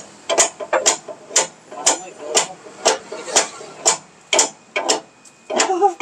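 Hammering at a large truck's wheel: evenly spaced sharp strikes, about two a second.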